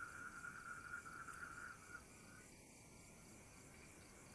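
Crickets and other night insects calling faintly: a steady trill that breaks off about two seconds in, over a fainter high-pitched insect buzz that keeps on.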